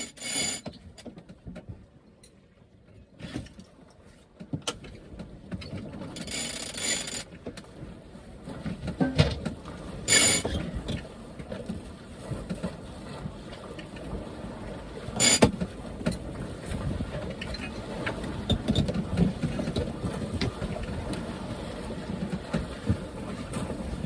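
Sailing yacht under way: a steady rush of wind and water, after a brief lull at the start, with a few sharp knocks from the boat, the loudest about ten and fifteen seconds in.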